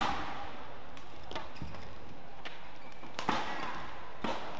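Badminton rally: several sharp racket strikes on the shuttlecock, the loudest a little over three seconds in. Steady arena crowd noise runs underneath.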